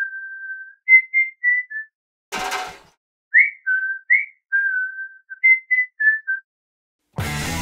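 A whistled tune of short single notes, some sliding upward, with a brief noisy burst about two and a half seconds in. Music comes in near the end.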